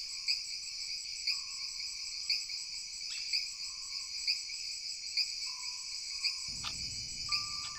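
Crickets chirping in a steady night-time ambience, with a stronger chirp about once a second. Near the end a low rumbling whoosh rises briefly, and a single high chime note begins.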